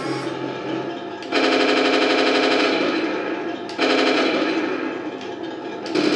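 Heng Long Challenger 2 RC tank's sound unit playing its machine-gun effect through the tank's small speaker: three bursts of rapid fire, each a second or so long, the first starting about a second in.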